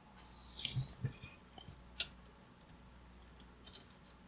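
Faint handling sounds of capacitor wire leads being fitted on a vintage radio receiver's chassis: a brief rustle about a second in, then a single sharp click about two seconds in, with a few small ticks.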